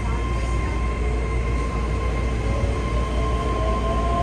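Keihan 3000 series train's Toyo IGBT-VVVF inverter whining under power, heard from the driver's cab over the steady rumble of wheels and motors. A steady high tone is joined about two-thirds of the way through by a second tone that slowly rises in pitch as the train picks up speed.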